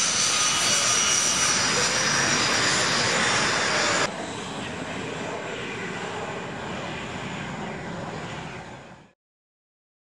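SOKO G-2 Galeb jet trainer's single Rolls-Royce Viper turbojet running as the aircraft taxis past: a loud rush of jet noise with a steady high whine. About four seconds in it drops abruptly to a quieter rush that fades away about nine seconds in, ending in a second of silence.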